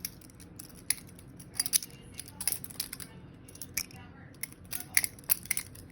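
Butterfly knife being flipped open and closed, its metal handles clacking together in irregular clusters of sharp clicks.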